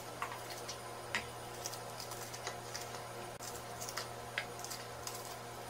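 Faint, irregular little clicks of a paring knife slicing shallots held in the hand, the pieces dropping into a bowl of grated coconut, over a low steady hum.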